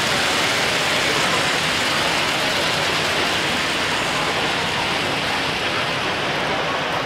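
HO-scale model freight train rolling along the layout's track: a steady rushing rumble of wheels on rails, with the general din of a busy exhibition hall.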